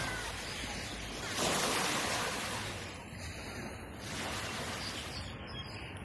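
Small waves breaking and washing up on the shore in swells, the loudest surge about a second and a half in.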